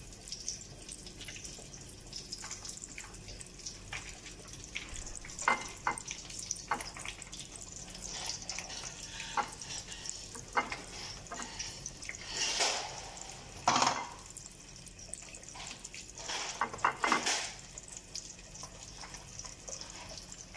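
Breaded chicken deep-frying in a pot of oil, a steady sizzle, with scattered taps and knocks from handling dishes while coating more pieces, and a few louder clatters in the second half.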